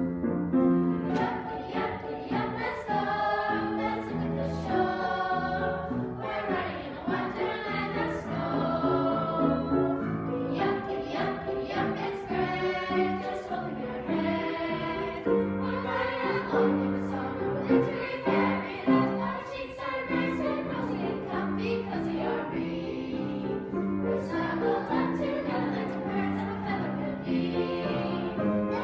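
A children's choir singing a holiday song.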